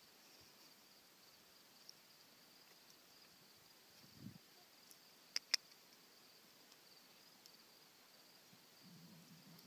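Near silence outdoors, with a faint steady high chirring of insects. A soft low thump comes about four seconds in, and two sharp clicks follow in quick succession about a second later.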